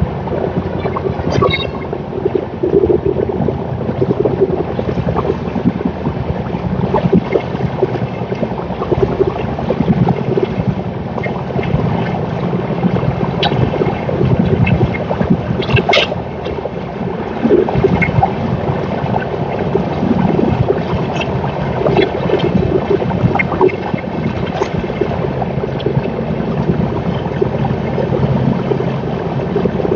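Express passenger train running through at speed, about 105 km/h: a steady, loud rumble of coaches passing, with scattered sharp clicks and clatters from the wheels on the track.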